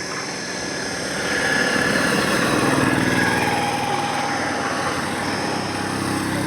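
Road traffic with a motor vehicle passing close by: engine and tyre noise swells about a second in, peaks midway, then eases off over the steady wash of traffic.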